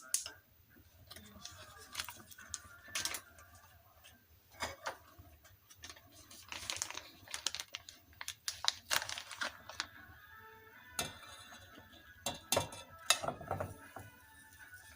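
Irregular light taps, clicks and rustles of kitchen work: utensils and noodle dough being handled.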